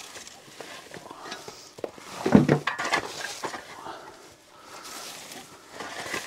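Long-handled tools scraping and clinking against a metal wheelbarrow tray as chopped straw is stirred and shovelled into it, in irregular scrapes and rustles, loudest about two and a half seconds in.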